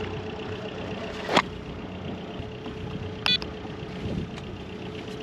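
Sailboat's auxiliary engine idling steadily, warming up before the anchor is raised. There is a sharp click about a second and a half in and a brief high beep near the middle.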